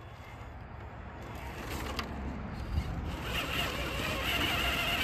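Traxxas TRX-4 RC crawler's electric motor and geartrain whining as it climbs, the whine wavering in pitch with the throttle and growing louder from about three seconds in. A sharp click comes about two seconds in and a knock just before three.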